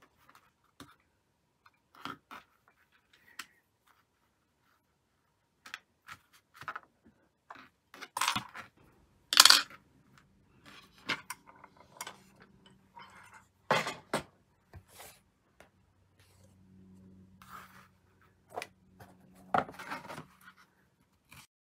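Hands handling lace and small objects on a tabletop: scattered light taps, clicks and rustles, the loudest a sharp knock about nine seconds in.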